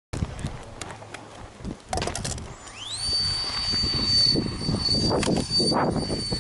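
Electric ducted fan of a radio-controlled model plane winding up about three seconds in to a steady, high, jet-like whine, preceded by a few clicks.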